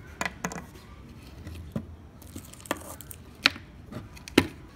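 About six sharp, irregular clicks and knocks of the plastic speaker housing and its parts being handled on a wooden tabletop, the two loudest near the end.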